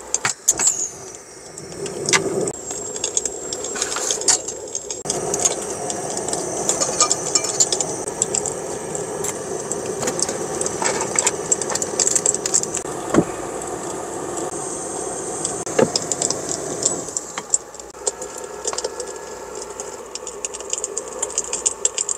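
Clinks and rattles of cooking gear over a steady rushing noise, which drops away about three-quarters of the way through.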